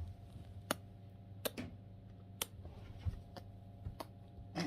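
Irregular sharp clicks and taps from pet birds' beaks, about seven over a few seconds, over a steady low electrical hum.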